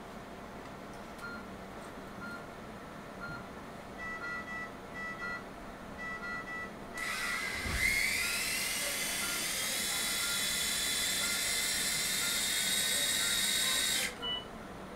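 Surgical power drill starting about halfway through, its whine rising in pitch as it spins up, then running steady for about seven seconds before stopping suddenly. Short electronic beeps, about one a second, from the operating-room monitor.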